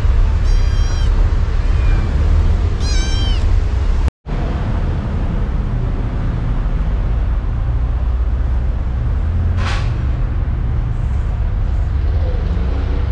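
Stray kitten meowing twice, high-pitched calls that bend in pitch, over a steady low rumble.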